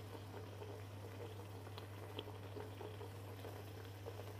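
Faint, steady sizzling and hiss of mashed turnip heating in a pot on a lit stove, over a low hum, with a couple of tiny clicks about two seconds in.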